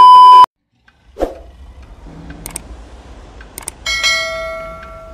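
Loud television test-tone beep, a steady 1 kHz tone, cutting off about half a second in. It is followed by a thump, two clicks, and a bell-like notification chime a little before the end that rings out and fades, as in a subscribe-button animation.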